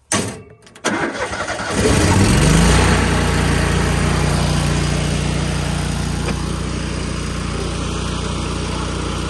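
Trailer-mounted engine-driven welder being started: the engine cranks, catches about two seconds in, briefly runs up, then settles into a steady even run.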